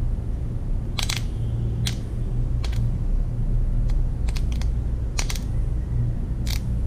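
Sharp, irregular wet clicks, about eight of them, as slimy fingers press together and pull apart while handling halfbeak innards, over a steady low hum.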